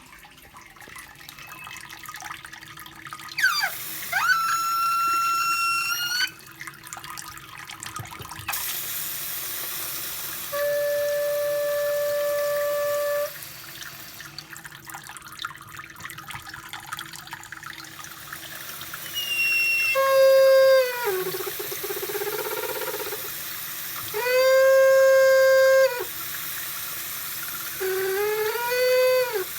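Kitchen faucet with water running, letting out a pitched squeal five times, each lasting one to three seconds. Some of the squeals hold a steady note; others slide up or down in pitch.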